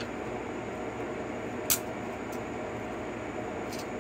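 A steady fan-like hum runs throughout. About halfway through comes a single sharp metallic click, and a couple of faint ticks follow near the end, from hands and a tool working at the valve adjuster through the open inspection port of a Suzuki DR-Z125 cylinder head.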